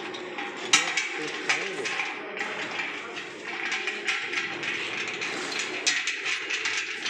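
A few sharp metal clinks and knocks as the eye-nut swing-bolt clamps on the flange of a stainless steel filter housing are handled. Voices talk underneath.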